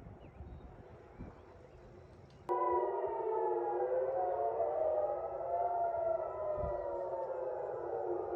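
Several civil-defence air-raid sirens wailing at once, their tones slowly rising and falling out of step with one another: an air-raid warning of incoming missiles. They come in suddenly and loud about two and a half seconds in, after a quieter stretch.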